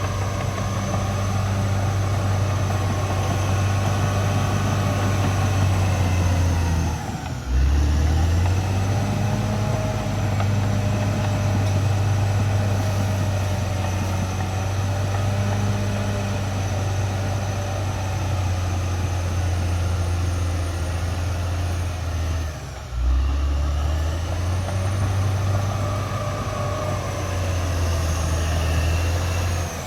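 Caterpillar D6R XL bulldozer's diesel engine running steadily under load. Its note dips briefly twice, about seven seconds in and again some fifteen seconds later.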